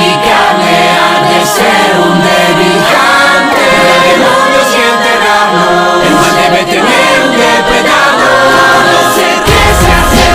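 Music: a choir-like passage of layered voices singing long held notes with no drums. A deep bass comes in near the end.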